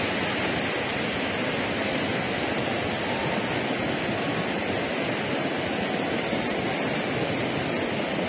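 Steady applause from a large arena crowd, an ovation at the end of a figure skating program.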